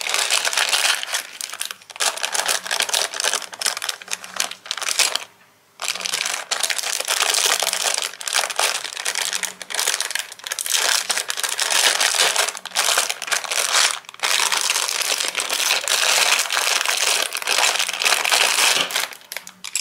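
Clear plastic packaging crinkling and rustling as a press-seal bag is opened and crochet hooks are worked out of their plastic sleeve, with a brief pause about five and a half seconds in.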